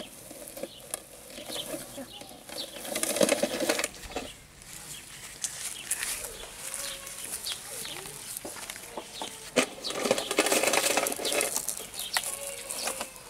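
Leaves and branches rustling in bursts as a boy moves about in a tree, with scattered snaps and clicks and faint children's voices.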